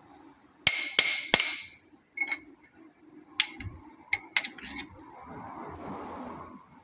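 Metal tools and engine parts clinking together: three sharp ringing strikes about a second in, then several lighter clinks.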